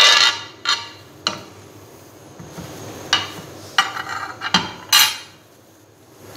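Cutting board and wooden spatula knocking against a karahi (wok) as chopped tomatoes are scraped in and stirred: a string of sharp clanks with a short ring, about seven in all, the loudest right at the start.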